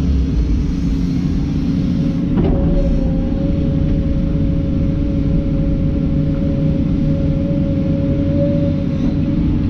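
Komatsu PC290 excavator's diesel engine and hydraulics running steadily under load while digging, heard from inside the cab. A knock about two and a half seconds in, after which a steady whine sits above the engine's rumble.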